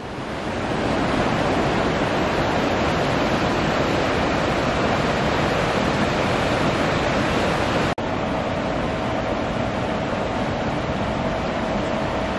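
Steady loud rushing of a river flowing through a gorge below a bridge. There is a brief break about eight seconds in, after which a faint steady hum sits under the water.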